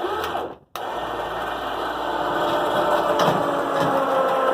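Small electric winch motor running under load, lifting the swing-up door to take its weight off the prop legs. It starts with a short burst that stops sharply, then after a brief pause runs steadily for about four seconds.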